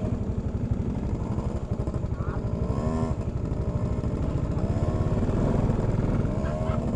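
Motor scooter engine running close to the microphone, a dense low throb.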